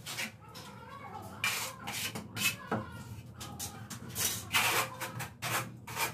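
Notched trowel scraping and combing tile adhesive across a wall in repeated strokes, several quick stroke sounds in a row.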